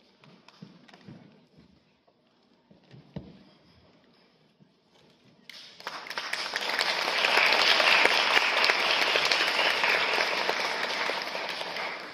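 Audience applauding, starting about halfway through as the dancers bow, swelling quickly and then slowly fading. Before it, only a few faint knocks and shuffles.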